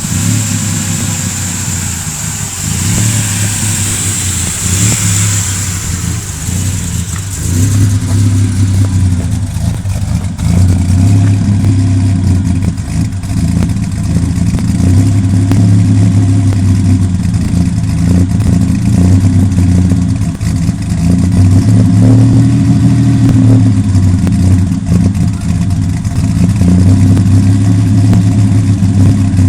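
Ford Ranger's 4.0 L V6 running through a Flowmaster American Thunder dual exhaust while misfiring. A high hiss sits over the engine for the first eight seconds or so; then the engine gets louder and swells up and down, as with revving.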